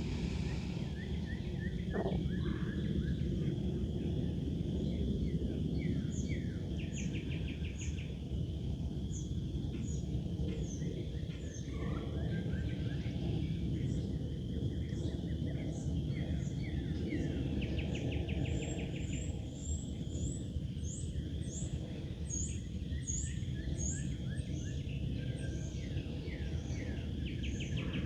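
Several songbirds chirping and calling, with short, fast trills repeating every so often, over a steady low outdoor rush.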